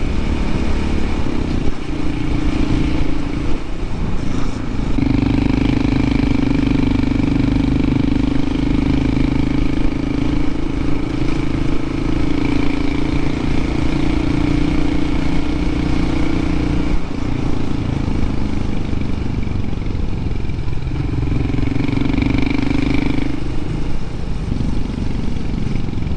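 Honda CT125 Hunter Cub's single-cylinder engine running under way, its note holding steady for long stretches, easing off a few times and picking up again.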